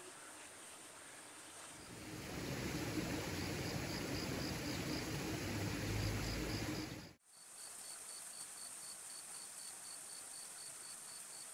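Crickets chirping in an even rhythm of about four chirps a second over a steady high insect whine. A louder rushing noise comes in about two seconds in and cuts off abruptly about seven seconds in.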